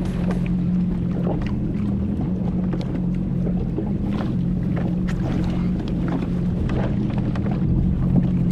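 Jet ski engine idling steadily, with a few small clicks and knocks over it.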